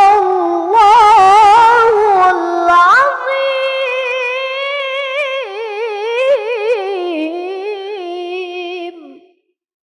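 A young boy reciting the Quran in melodic tilawah style into a microphone: one long, ornamented held phrase with fast wavering turns. It rises in pitch about three seconds in and ends about a second before the close.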